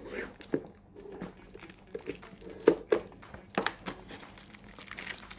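Fingers picking and peeling sticky tape off the lid of a clear plastic takeaway bowl, the thin plastic crinkling and clicking. An irregular run of clicks and crackles, the sharpest ones a little past the middle.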